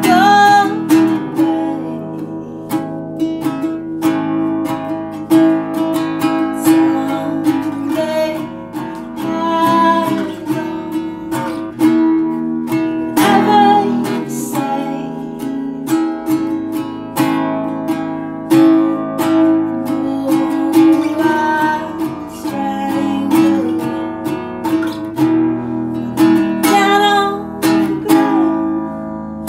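Song recording led by an acoustic guitar playing strummed chords, with plucked notes among them.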